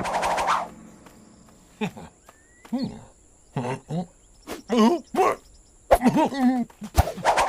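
Short wordless vocal noises from cartoon characters: brief murmurs and squeaky exclamations with bending pitch, separated by pauses, after the tail of a big sneeze blast dies away at the very start. A single sharp click comes near the end.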